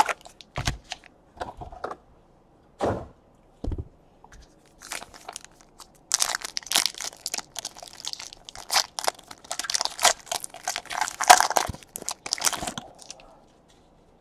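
A few soft knocks in the first few seconds, then a trading-card pack wrapper being torn open and crinkled for several seconds.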